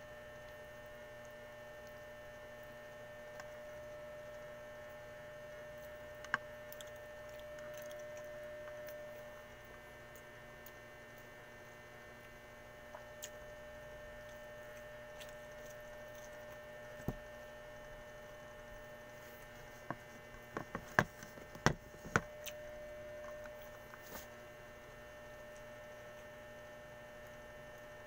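Faint steady electrical hum, with scattered soft clicks and taps from eating rice and fish by hand off a plate, most of them bunched together about three-quarters of the way through.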